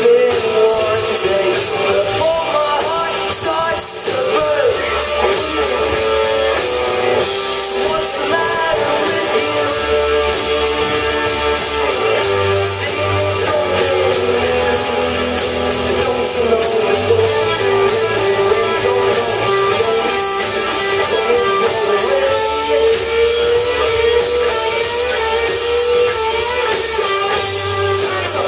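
Live rock band playing: electric guitars, bass guitar, drums and keyboard, with a singer carrying the melody over them.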